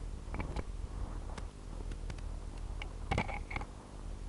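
Branches, twigs and leaves rustling and snapping close to the microphone as a person pushes through dense undergrowth, with scattered sharp clicks and a louder cluster of snaps about three seconds in, over a steady low hum.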